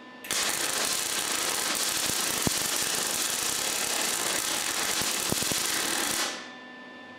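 Wire-feed welder arc crackling steadily for about six seconds, laying a spot weld through sheet steel to join a reproduction panel to the original fender, then cutting off abruptly.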